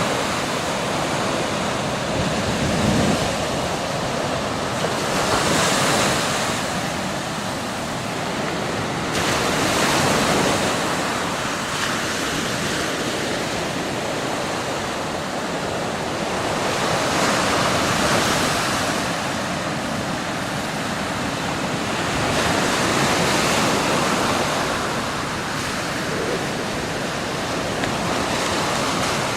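Surf breaking on a sandy beach, a wash of noise that swells and eases every five or six seconds as the waves come in, with wind buffeting the microphone.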